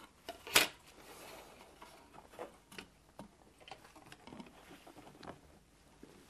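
Scattered light clicks and taps of plastic model kit parts being handled and fitted together, with one sharper click about half a second in.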